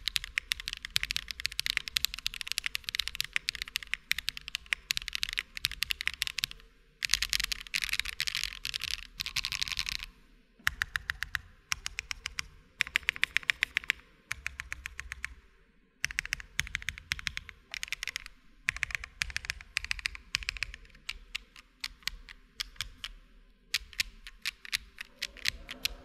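Fast typing on a Meletrix Zoom75 Tiga custom mechanical keyboard: dense runs of clacky keystrokes with the odd heavier bottom-out, broken by brief pauses every few seconds.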